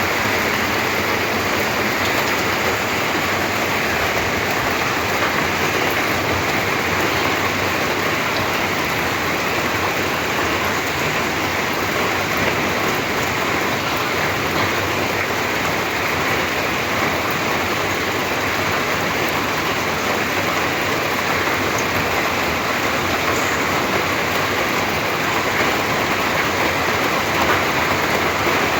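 Rain falling steadily, an even hiss of water with no breaks.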